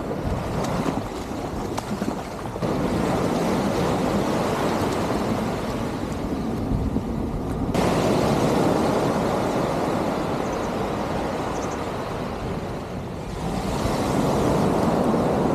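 Surf washing in the shallows and onto the beach, with wind buffeting the microphone. The noise jumps or drops abruptly a few times.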